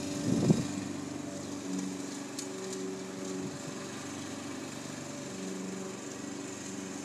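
Walk-behind gasoline lawn mower engine running steadily while it is pushed across the grass, its note wavering slightly. A short, louder burst of noise comes about half a second in.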